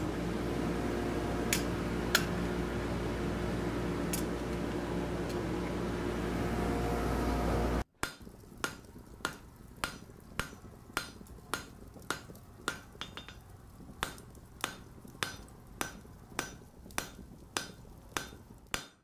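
A steady hum and rush of a lit forge running, with two sharp metal clinks. About eight seconds in it cuts to a blacksmith's hammer striking an anvil in a steady rhythm, a little under two blows a second, each blow ringing briefly.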